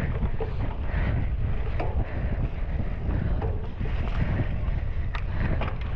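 Wind rushing over the microphone of a cyclocross bike ridden at race pace, a steady heavy rumble with a few sharp knocks and rattles from the bike.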